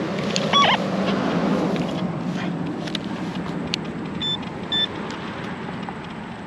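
A vehicle passing on a road, swelling and fading over the first few seconds, with two short high beeps about four seconds in.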